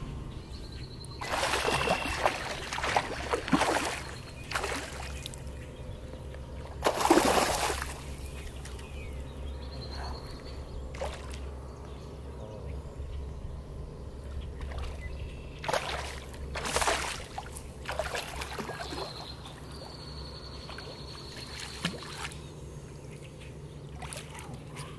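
A hooked smallmouth bass splashing and thrashing at the water's surface while being fought from shore, in several separate bursts, the loudest about seven seconds in. A steady low hum runs underneath.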